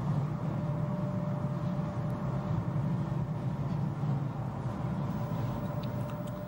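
Cab noise of a DB class 103 electric locomotive running at speed: a steady rumble with one faint constant tone above it, easing off a little near the end.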